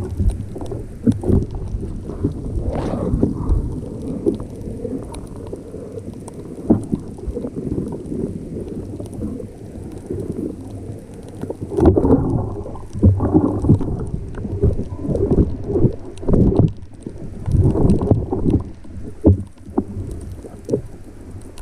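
Muffled underwater sound from an action camera on a breath-hold spearfishing dive: low rumbling water movement with irregular swishing surges and short knocks.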